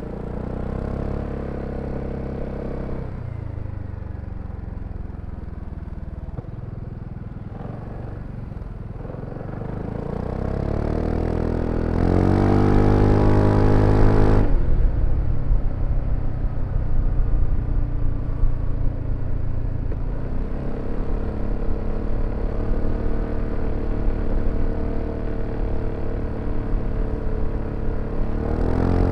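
BMW C400X scooter's single-cylinder engine and exhaust while riding. The throttle eases off about three seconds in. It then opens up with the revs climbing to the loudest stretch about halfway through, is shut off abruptly, and the engine settles into steady cruising.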